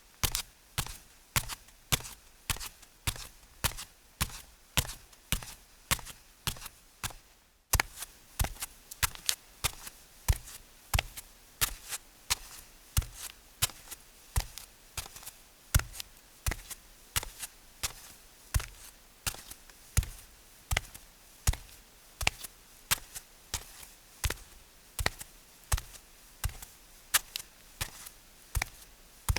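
Footsteps walking at a steady pace, about two steps a second, each a sharp tap. About eight seconds in, the sound cuts to a different take with a slightly different background, and the steps carry on at the same pace.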